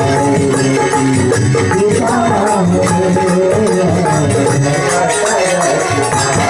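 Live folk music from a small ensemble: a barrel drum beaten in a steady, fast rhythm with high jingling percussion on each beat, and a voice singing into a microphone.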